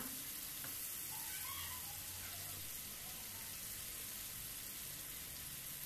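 Tandoori-marinated chicken legs frying in butter and oil in a nonstick pan: a steady, soft sizzle.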